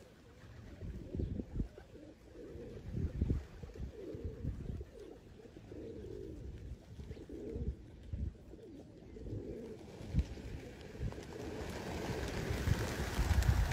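Pigeons cooing repeatedly in low, rolling calls, with scattered low thuds. A rushing noise builds near the end.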